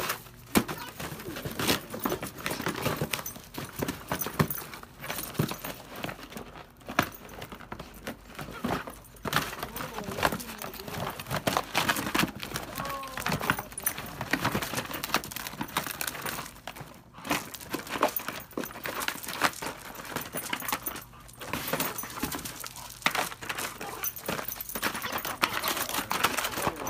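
Dog tearing at and shoving a cardboard box with its mouth and paws: repeated rustling, crumpling and scraping of cardboard, with scattered knocks. A short wavering tone sounds about halfway through.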